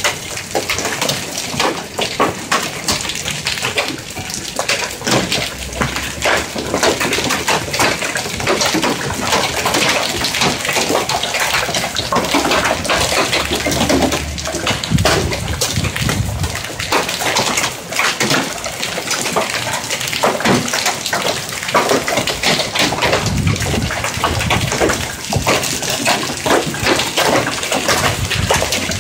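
Hail falling heavily: a dense, steady clatter of countless small hailstone impacts over a hiss.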